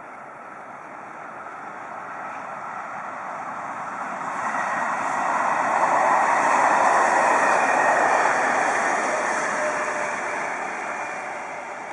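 SNCF Z 7300-series (Z2) electric multiple unit passing along the line. Its running noise swells over several seconds, is loudest around the middle and then fades away.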